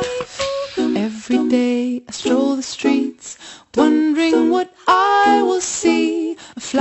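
Background music: a woman singing in short phrases over a light accompaniment.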